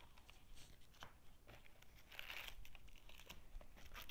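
Faint crinkling and rustling of foil trading-card packs and their box being handled, with light ticks and a denser rustle about two seconds in.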